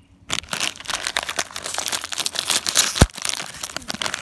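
A foil snack bag of Andy Capp's Cheddar Fries crinkling loudly as it is pulled and torn open, with one sharp pop about three seconds in.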